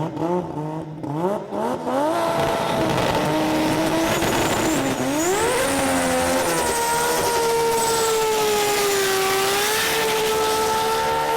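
Engine of a 2700 hp VL Holden Commodore drag car, revved in short rising blips, then run up and held at a high, steady pitch before it drops off near the end.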